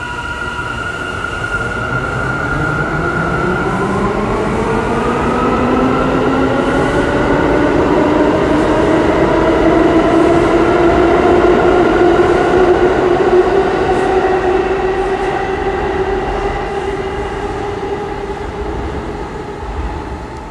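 New York City subway train pulling out: its traction motors whine, rising steadily in pitch as it accelerates, getting louder toward the middle and then fading as it moves off.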